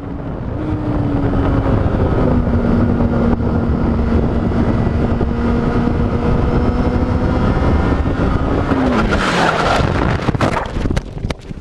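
Sport motorcycle being ridden at a steady engine speed, with heavy wind rush over the microphone. The engine note drops slightly twice in the first couple of seconds, holds steady, then falls away about eight to nine seconds in as the throttle closes.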